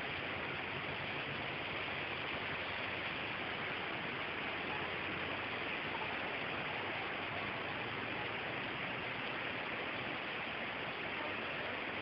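Heavy rain pouring down in a storm: a steady, even hiss.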